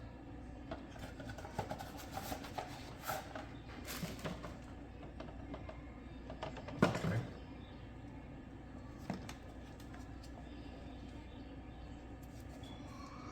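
Scattered light clicks and knocks of small parts being handled, with a louder knock about seven seconds in, over a steady low hum.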